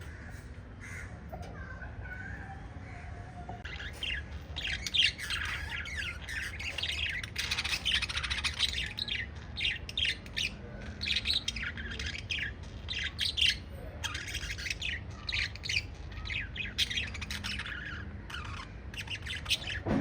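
Pet lovebirds chirping and squawking: quick strings of short, sharp, high calls that build up about four seconds in and keep going, over a steady low hum.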